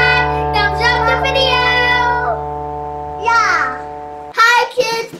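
Children singing over backing music with steady held notes, with a sliding downward vocal note near the end. The music then cuts off and a child's voice starts.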